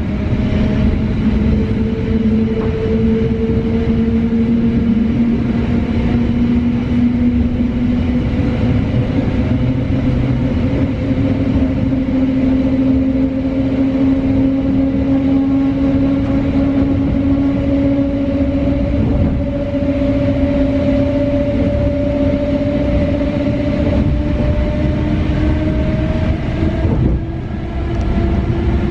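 EN71 electric multiple unit heard from inside the passenger car: a steady rumble of wheels on rails under a whine from the traction drive. The whine rises slowly in pitch throughout as the train gathers speed.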